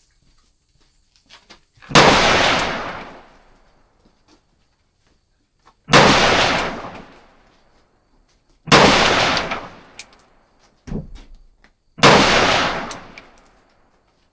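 Four single gunshots from rifles at an outdoor range, a few seconds apart, each report echoing away over about a second, with a fainter shot in between.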